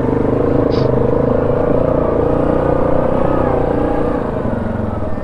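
ATV engine running steadily, easing off slightly about four and a half seconds in.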